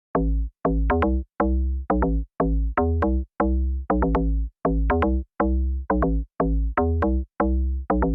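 Electronic background music with a steady beat, deep bass notes pulsing about twice a second.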